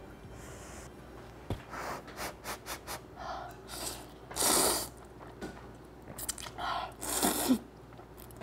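A person slurping ramyeon noodles, with a loud slurp about halfway through and another near the end, and short mouth or chopstick clicks before them.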